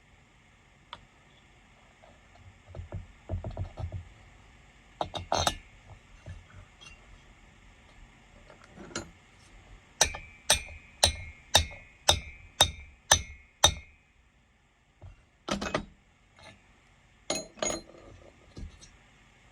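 Metal-on-metal clatter of workshop tools being handled, then eight sharp ringing taps about half a second apart, then a few more clinks near the end.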